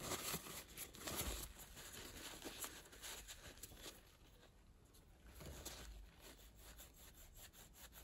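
Faint rustling and rubbing of a crumpled paper tissue wiping dirt out of a small fan motor's metal bushing housing, with a few light clicks as the part is handled, busiest in the first second or so.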